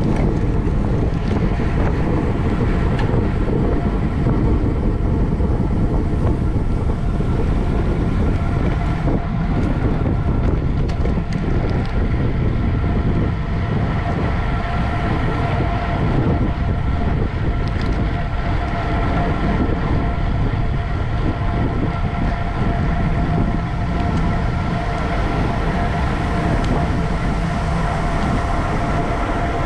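Wind buffeting the microphone of a camera riding on a racing bicycle at speed, a dense steady rush, with a steady whining hum running under it.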